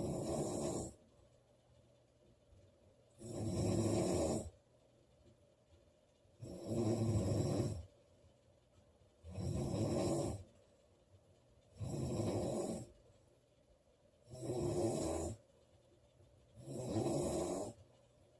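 A woman snoring loudly and steadily, one snore about every three seconds, each lasting about a second, with quiet gaps between.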